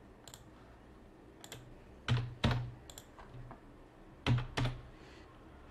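Computer keyboard keys being pressed: a few light clicks, then two pairs of louder key presses about two seconds apart.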